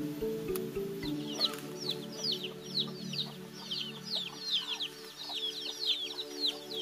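Chicks peeping: many short, high, downward-falling peeps, several a second and overlapping, starting about a second in, over soft background music with steady held tones.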